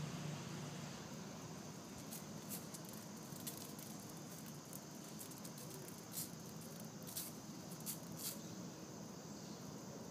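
A dog tussling with a cicada: six or seven short, sharp rasping clicks, scattered irregularly over a steady faint hiss.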